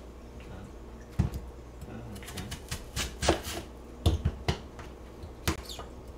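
Kitchen knife cutting a peeled Korean radish on a plastic cutting board: a scattered, uneven series of sharp knocks as the blade goes through and strikes the board.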